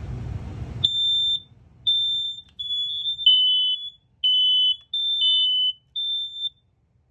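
Smoke alarms sounding on test: a string of shrill half-second beeps at two slightly different pitches that overlap and run out of step. They start about a second in and stop after about six seconds.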